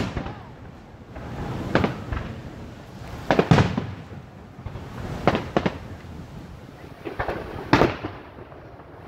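Aerial firework shells bursting overhead: a run of about eight sharp booms and crackles, some in quick pairs, each trailing off in an echo. The loudest come about a third of the way in and near the end.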